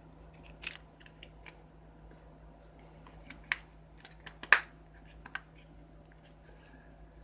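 Scattered light clicks and taps from handling small parts, a sharp one about three and a half seconds in and the loudest about four and a half seconds in, over a faint steady hum.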